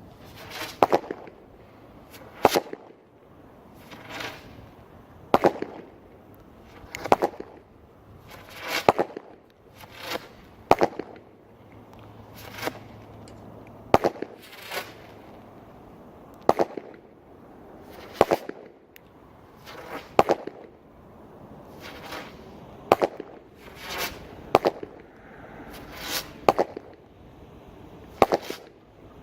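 A Texas Cyclone consumer fireworks cake firing its shots one after another, a sharp bang about every one and a half to two seconds, some coming in close pairs.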